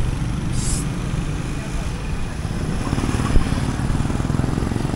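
Roadside traffic: motorcycles, tricycles and cars running past on the street in a steady low rumble, with a short hiss about half a second in and a single sharp knock a little past three seconds.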